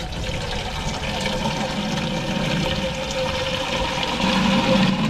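Water from an outdoor brass tap running into a plastic water drum through its filler opening, a steady gushing that grows louder about four seconds in.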